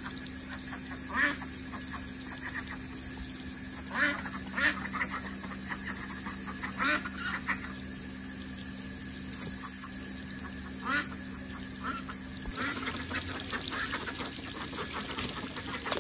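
Domestic ducks giving short, scattered quacks, about half a dozen, over a steady high-pitched hiss.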